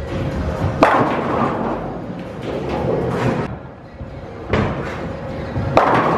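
Bowling ball crashing into tenpins, once about a second in and again near the end, each crash followed by a clatter of falling pins, with a low rumble of a ball rolling down the wooden lane in between.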